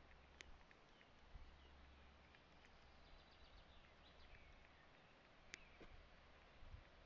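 Near silence: faint outdoor quiet with a few faint bird chirps in the middle and two sharp clicks, one near the start and one about five seconds in.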